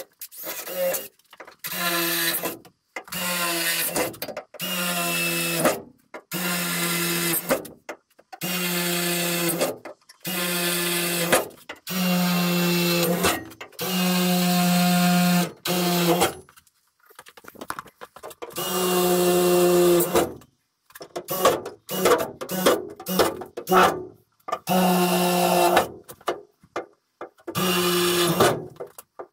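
Cordless drill run in repeated short bursts of about a second each, more than a dozen in all, its motor note steady within each burst, while drilling into the wall framing.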